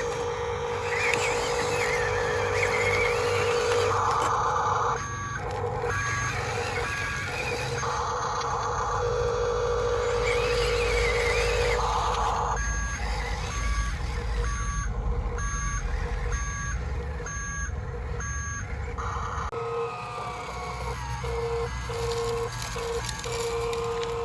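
Radio-controlled model truck's electronic sound unit playing a diesel engine sound with a reversing beeper, which comes in runs of evenly spaced beeps at about one and a half a second, with pauses where only the steady engine tone plays.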